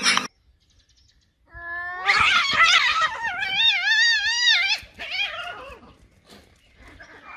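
A cat yowling: one long caterwaul that begins about a second and a half in, rises, then warbles up and down before tailing off about five seconds in.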